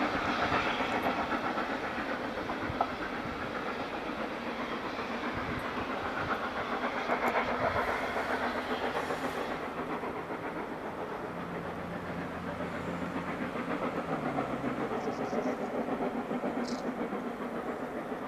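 Heritage railway train running through a cutting: a steady noise, with wind buffeting the microphone. A low drone joins about eight seconds in and fades a few seconds later.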